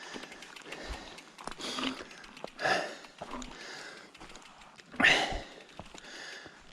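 A mountain biker breathing hard between efforts, a few audible breaths with the loudest about five seconds in, over faint scattered ticks.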